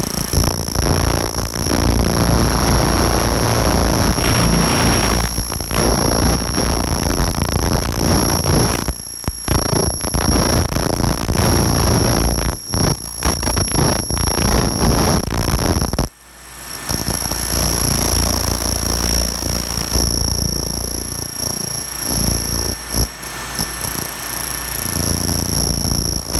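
Pulsed laser cleaner ablating paint from a motorcycle fender: a loud, steady hiss with a constant high-pitched whine over it. The sound cuts out sharply about sixteen seconds in, then builds back up.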